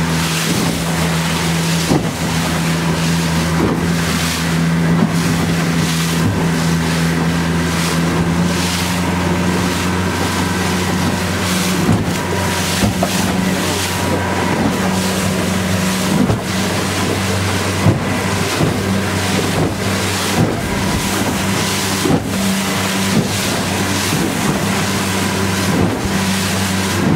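Motorboat engine running steadily, heard from on board, with water rushing past and wind on the microphone; a few short knocks stand out here and there.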